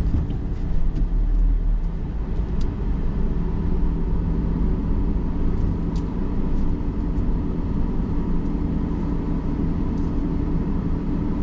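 Car moving slowly while being parked, its engine and tyres giving a steady low hum.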